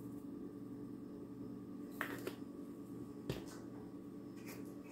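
A pepper shaker shaken over a piece of raw chicken and set down on a granite countertop: a few light clicks about two seconds in, then a sharper knock a little after three seconds, over a steady low hum.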